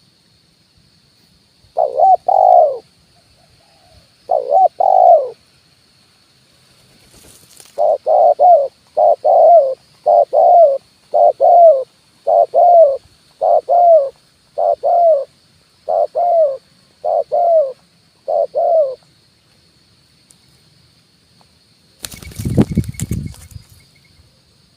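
Spotted dove (tekukur) cooing its 'kuk 1' call: two short double coos, then a run of about a dozen paired coos at roughly one a second that stops after about 19 seconds. A faint steady high whine lies underneath, and near the end a loud, rough burst of noise lasts about a second.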